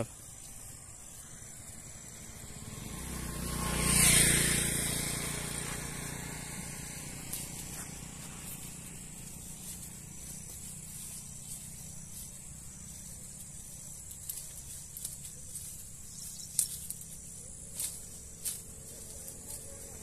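A vehicle passing by, swelling to a peak about four seconds in and fading slowly. Near the end come a few faint clicks and rustles as a long pole pokes into the branches of a tree.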